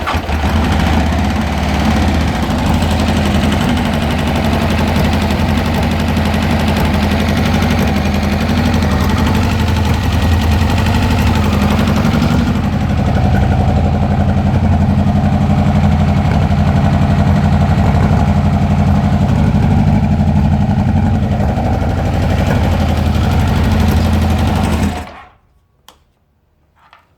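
Kawasaki Concours inline-four motorcycle engine running unevenly and misfiring, then shut off near the end. The misfire comes from an intake valve that has come loose from its valve spring and is stuck fully open.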